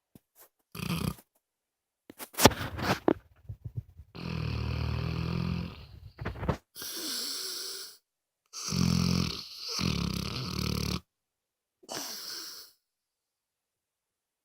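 Dog snoring: low rattling snores, each followed by a hissy breath, with a cluster of short snorts and snuffles about two to three seconds in.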